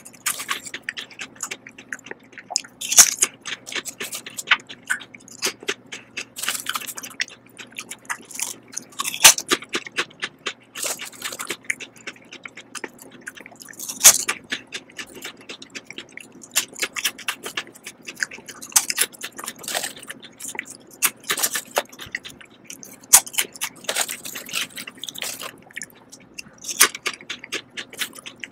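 Lay's Texas BBQ potato chips being bitten and chewed: a rapid run of crisp crackling, with a sharper, louder bite every few seconds.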